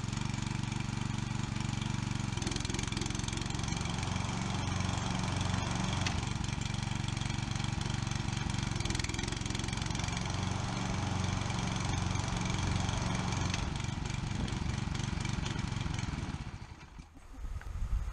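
Hayter Pro rotary lawn mower's engine running steadily after being started, then cutting out near the end.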